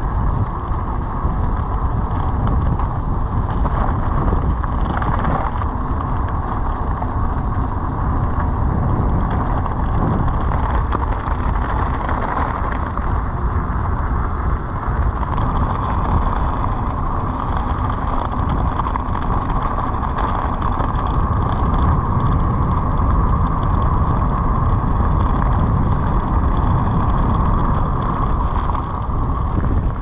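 Steady rush of wind over the microphone and tyre rumble from a bicycle riding down a steep descent.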